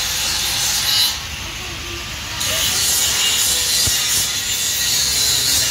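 Electric metalworking tool on a steel gate frame: a steady, harsh hiss that cuts out suddenly for about a second and then starts again.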